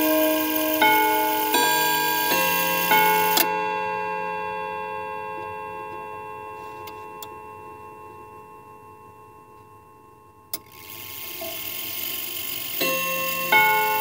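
Cathedral chime clock's hammers striking its steel chime rods, a run of ringing notes in a tune, then the rods left ringing and slowly fading for several seconds. A sharp click comes past the middle, and the chime strikes start again near the end.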